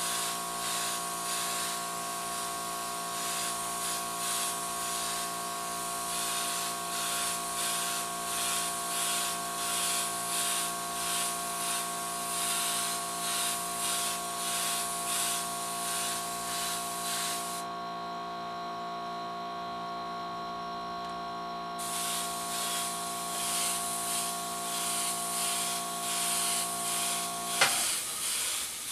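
Airbrush spraying paint onto a T-shirt: a high hiss of air that swells and fades with each pass and stops for a few seconds past the middle. Under it is a steady machine hum that cuts off with a click near the end.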